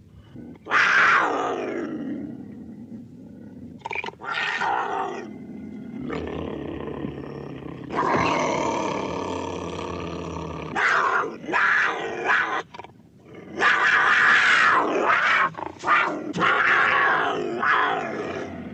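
A string of edited big cat roars and snarls, made as jaguar sounds. About a second in, one call falls in pitch; a long drawn-out call follows in the middle, then a run of short loud snarls in the second half.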